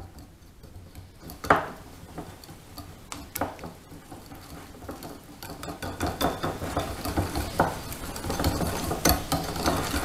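Wire whisk beating egg, butter and flour batter in a small ceramic bowl, the wires tapping and scraping against the bowl. Quiet at first with a single sharp click, then a fast, rapid tapping that grows louder from about halfway.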